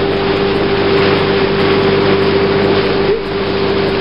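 Small tiller-steered outboard motor running steadily at speed, a constant hum over a broad rush of wind and water, with a brief dip a little after three seconds in.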